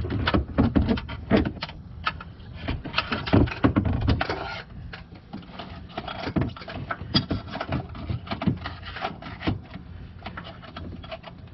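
Irregular knocks, clicks and rustling of a serpentine belt being worked by hand around the engine's pulleys, busiest in the first few seconds and lighter after that.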